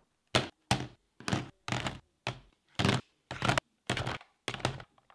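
Portable external hard drives dropped one by one onto a pile on a wooden tabletop: about a dozen short clacks and thunks of hard plastic and metal cases landing on each other, roughly two a second.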